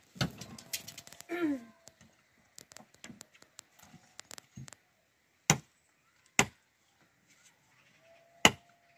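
A series of sharp strikes: a burst of quick knocks in the first couple of seconds, then single loud blows spaced one to two seconds apart. Near the middle there are two, and one more near the end. A short falling cry sounds about a second and a half in.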